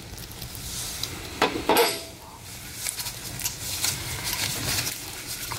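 Small loose metal parts clinking and tapping: nuts, washers and load-spreader plates being handled as they come off intake manifold studs by hand. A couple of sharper clinks come about one and a half to two seconds in, one ringing briefly.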